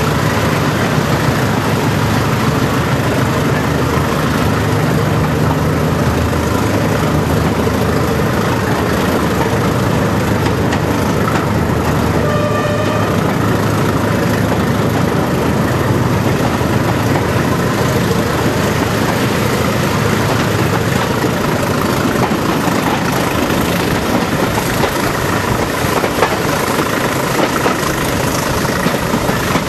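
Class 20 diesel locomotive's English Electric eight-cylinder engine working hard under power, heard from a carriage behind it together with steady wheel and rail noise, echoing as the train runs through a tunnel. A short high tone sounds about twelve seconds in.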